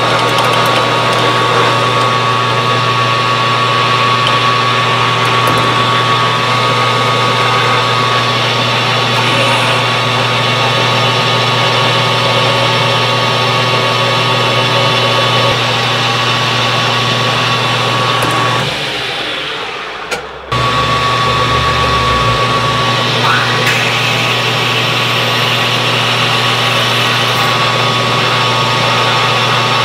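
A 12x36 metal lathe running steadily as a tailstock drill chuck drills into a spinning steel bar, giving a steady hum with a high whine over it. About two-thirds through the sound dips for a couple of seconds and then cuts back in.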